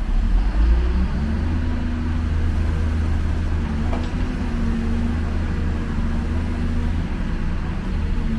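Excavator's diesel engine running steadily, with a steady whine above the low drone and a brief tick about four seconds in.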